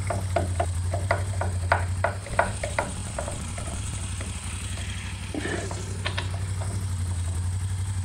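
A hand driver clicking in quick, even succession as the brake caliper's pad-retaining pins are screwed tight, for about three seconds, with a few more clicks about two-thirds of the way through. A steady low hum runs underneath.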